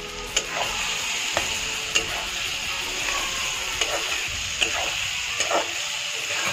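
Chopped boiled eggs and masala frying in oil in a metal kadhai, sizzling steadily while a metal spatula stirs them, scraping and clinking against the pan about once a second.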